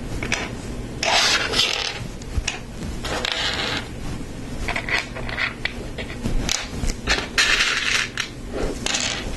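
Lego Technic plastic parts being handled by hand, rubbing and scraping against each other and the work surface in several short rustling stretches, with scattered small clicks.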